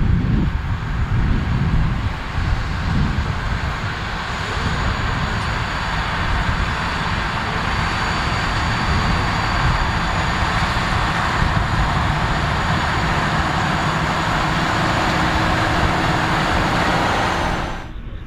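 John Deere articulated four-wheel-drive tractor's diesel engine working steadily under load, pulling a strip-till toolbar through corn stubble, growing slowly louder as it nears. The sound drops away suddenly near the end.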